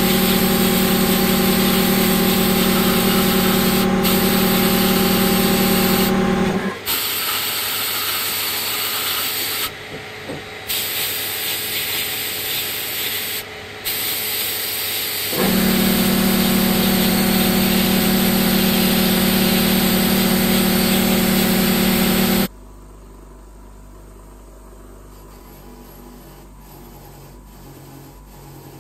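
Sandblasting cabinet in use: a loud, steady hiss of compressed air and abrasive from the blast nozzle over a humming motor. The hum cuts out about a quarter of the way in and returns about halfway, while the blast stops briefly twice. Near the end the sound drops suddenly to a much quieter low hum.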